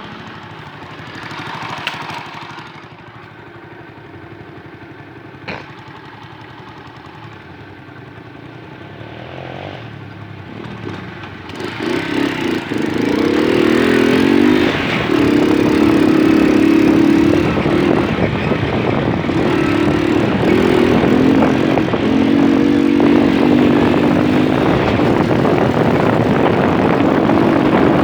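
Small moped engine running, fairly quiet at first, then much louder from about halfway in as it pulls away and rides on at a steady pace, its note rising and dipping slightly.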